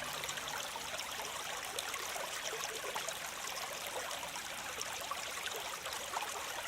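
Waterfall running steadily: an even rush of splashing and trickling water.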